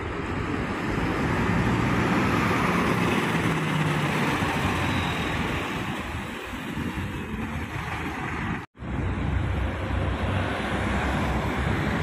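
Road traffic noise with wind rushing on the microphone, a steady noisy rush with no horn in it; the sound drops out for an instant about three-quarters of the way through.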